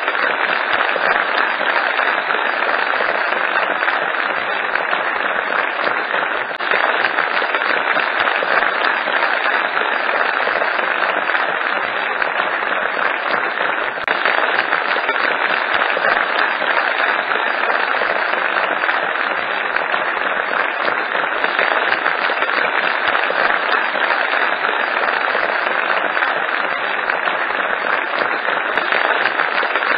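Theatre audience applauding steadily: dense, even clapping without a break.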